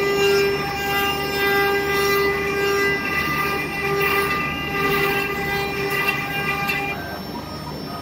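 CNC router spindle whining steadily at high speed while its bit carves a relief pattern into meranti wood, with the rough noise of the cut underneath. The whine falls away briefly about seven seconds in, then returns.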